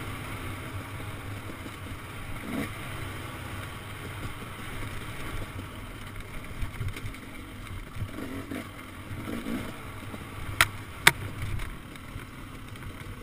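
Dirt bike engine running as the bike is ridden along a rough trail, muffled by wind on the helmet-camera microphone. Two sharp knocks about half a second apart near the end.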